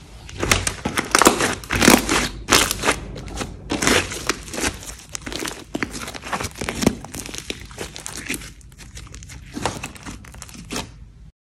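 Glossy slime being squished, stretched and folded by hand, giving dense, irregular sticky crackling and popping clicks, loudest in the first few seconds.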